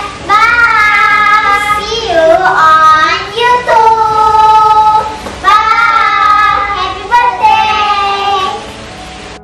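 Two children singing loudly together, with long held notes that slide up and down; the singing fades near the end.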